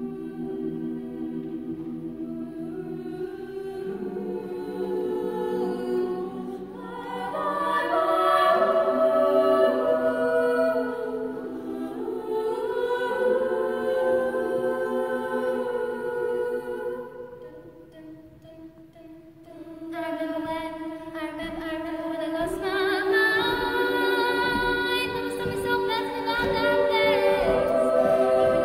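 Female a cappella choir singing in several-part harmony, beginning with held chords that build up, dropping quiet about eighteen seconds in, then coming back louder in a livelier, rhythmic section.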